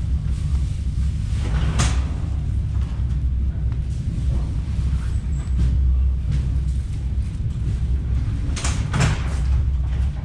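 Interior of a moving electric commuter train: a steady low running rumble, with sharp rattles or knocks about two seconds in and again near the end.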